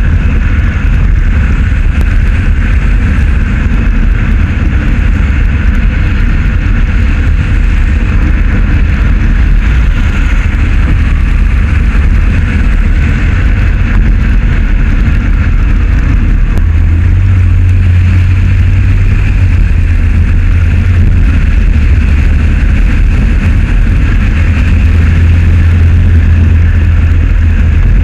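Steady road noise of a car driving along a concrete road: a loud, continuous low rumble of tyres and wind with a hiss above it.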